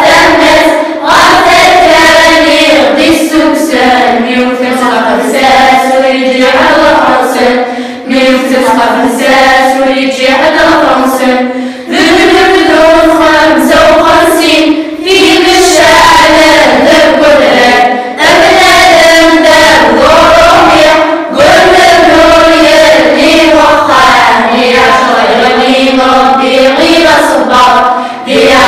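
Children's choir of girls and boys singing together, phrase after phrase, with brief pauses for breath every few seconds.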